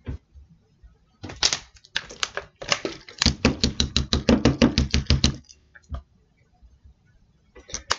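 Small plastic bottle upended over an open drink can, liquid glugging out of it in quick, even gulps, about seven a second, for about two seconds. Before that, a few scattered knocks and crackles from handling the bottle and can.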